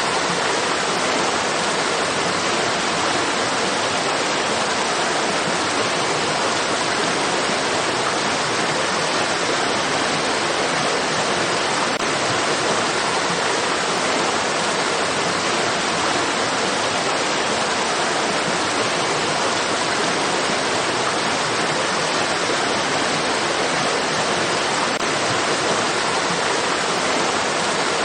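Flowing stream water rushing steadily, an even, unchanging wash of water noise.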